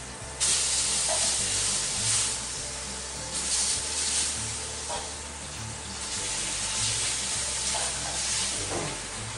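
Sous-vide pork steaks sizzling as they sear in a very hot wok. The sizzle jumps louder about half a second in, then swells and eases as the meat browns.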